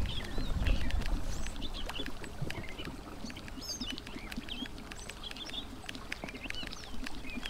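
Small birds chirping and twittering again and again in a marsh, over a low rumble that is strongest in the first second or so.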